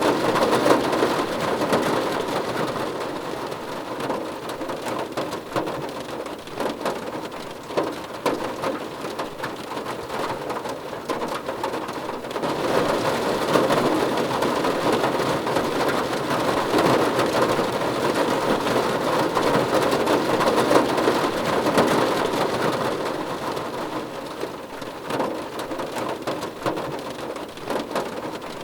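Rain pattering on a car's roof and windows, heard from inside the car: a dense spray of drop hits that swells heavier for a while in the middle and then eases off.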